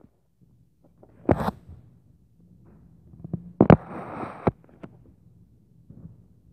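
Sudden knocks and bangs. Loud ones come about a second and a half in and near four seconds, the second followed by a brief scraping rustle and a sharp click. The uploader takes them for upstairs neighbours stomping.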